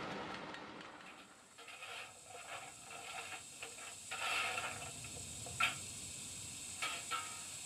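ESU LokSound V4.0 decoder in an Oxford Rail 00 gauge Adams Radial model playing stationary steam-locomotive sounds through its small speaker: a soft steady hiss broken by short steam puffs and a few sharp clicks. Louder train sound fades out over the first second or so.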